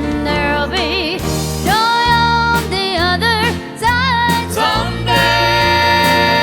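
Gospel song: a singing voice with strong vibrato over bass and instrumental accompaniment, settling into a long held note about five seconds in.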